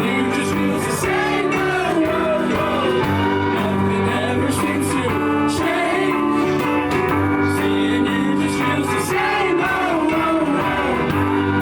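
A band playing a song: a singing voice over guitar and other instruments.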